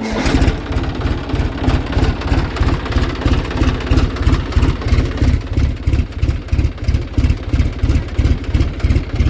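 John Deere tractor's diesel engine catching as the starter whine stops, then idling with an even low throb. The silencer is fitted without its gasket packing, so exhaust leaks at the joint and the engine sounds a little different.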